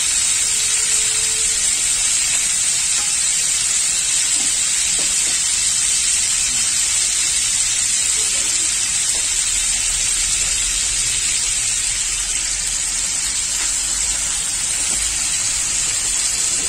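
Pieces of scad fish frying in oil in a pan, a steady sizzle. This is the pan-frying stage before the fish is braised.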